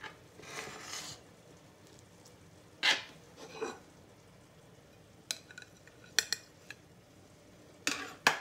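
Slotted metal spatula scraping and knocking against a baking dish while cutting and lifting out a square of baked karantika: a soft scrape, a loud knock about three seconds in, then a few sharp clinks. A louder cluster of clinks comes near the end as the piece is set on a plate.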